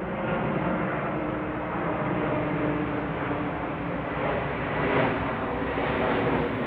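Jet airliner flying low overhead: a steady engine rumble that swells briefly about five seconds in.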